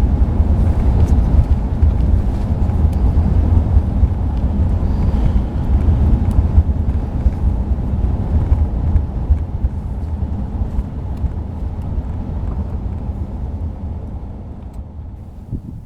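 Steady low road rumble of a van driving, fading away over the last few seconds.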